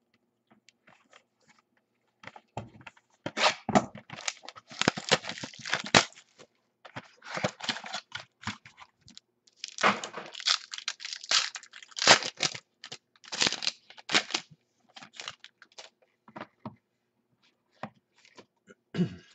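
Foil-wrapped trading card packs being torn open and crinkled by hand, in irregular bursts of tearing and crackling that start about two seconds in and die away a couple of seconds before the end.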